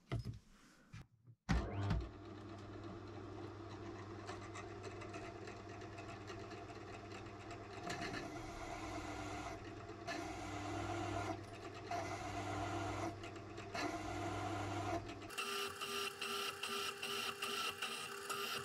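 A drill press motor switches on with a click and runs steadily while an M8 counterboring bit cuts into a steel block, the cutting noise swelling and easing as the quill is fed. About 15 seconds in it changes to a harsher, rapid rhythmic chatter: the bit catching and grabbing in the hole, which the machinist puts down to the block shifting in its clamping.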